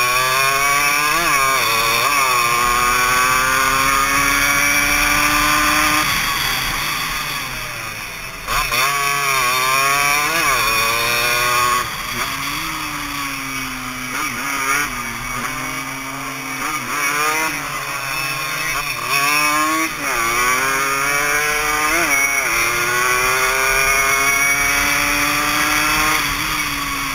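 Suzuki AX100 two-stroke single-cylinder race motorcycle engine heard onboard at racing speed, revving up again and again, with the pitch falling sharply at each upshift and when the throttle is eased for corners.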